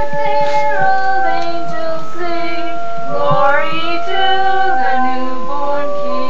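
A Christmas carol being sung, a melody of held notes that step from pitch to pitch.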